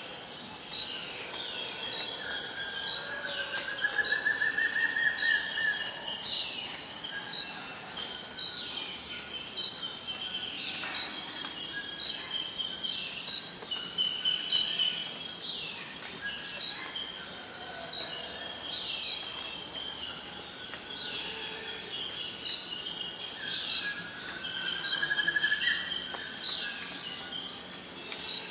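Tropical forest ambience: a steady high-pitched insect drone with many short falling bird calls repeating throughout, and twice a longer rising, rattling call.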